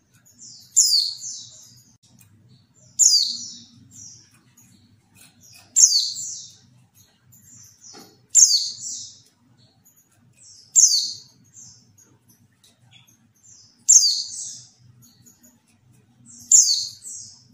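Female white-eye (pleci) calling. There are seven calls, about every two to three seconds, each a quick downward-sweeping note running into a short buzzy chatter. The recording is a lure call meant to set male white-eyes answering and singing.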